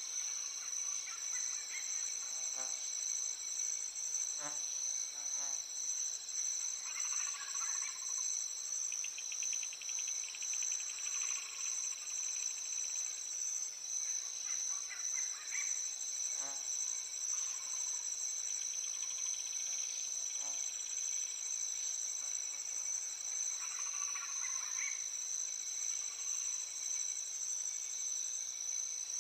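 Nature-sounds background track: a steady, high-pitched chirring of crickets or other insects, with bird calls and trills every few seconds.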